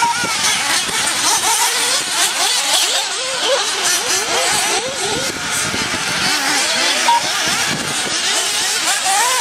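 Several 1:8 scale radio-controlled racing buggies running on the track, their small engines revving up and down in constantly rising and falling, overlapping high-pitched whines. A short flat beep sounds about seven seconds in.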